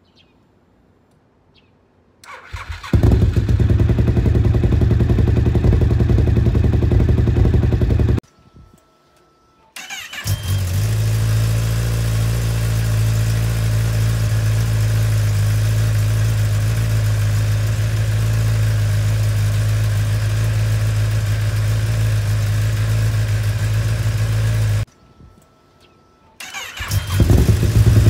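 Kawasaki ZX-10R inline-four engine started three times. It catches about two seconds in and idles steadily, stops abruptly after about six seconds, is started again and idles evenly for about fifteen seconds, then stops and is started once more near the end.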